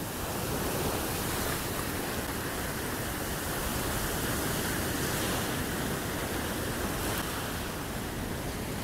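Steady rush of surf as small waves break and wash up a sandy beach.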